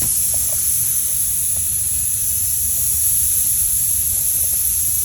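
Air hissing steadily out of a car tire through the hole left by a pulled screw. It is fairly loud, the sign of a fairly large puncture hole.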